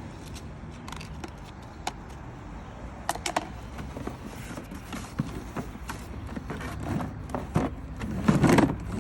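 Hard plastic vacuum attachments being handled, with scattered clicks and scrapes and a louder clatter near the end, over a steady low hum. The vacuum itself is not running.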